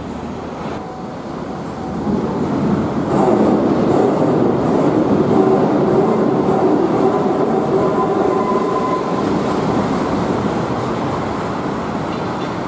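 Wuppertal Schwebebahn suspended monorail car running along its overhead steel track. The rumble swells about two seconds in, then slowly eases off, with a run of regular clacks and a faint whine.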